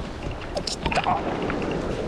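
Sea water washing and lapping against concrete tetrapods, with a few short clicks and a brief squeak about halfway through.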